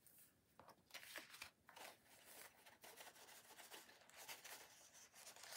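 Faint, irregular rustling of paper and a plastic sticker film as hands rub a transparent flower sticker sheet down onto card and then lift the film away.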